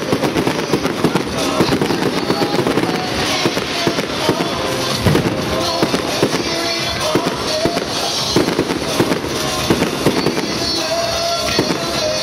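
Fireworks display: a continuous run of bangs and crackling from rockets going up and shells bursting.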